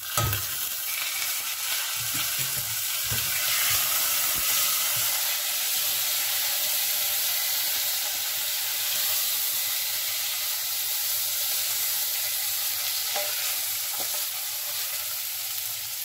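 Basmati rice and toasted vermicelli sizzling in hot oil in a stainless steel saucepan while being stirred with a wooden spoon: the rice being toasted in the oil before the stock goes in. A steady sizzle, with a few knocks in the first few seconds and a couple more near the end.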